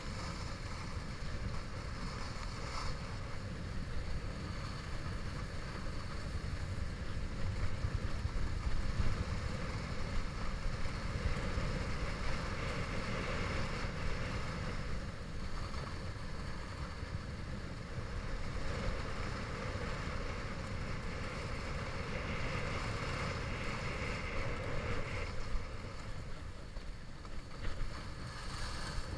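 Wind buffeting the microphone of a body-worn camera on a fast ski descent, a steady low rumble, with the hiss of skis sliding over packed, groomed snow rising and falling with the turns.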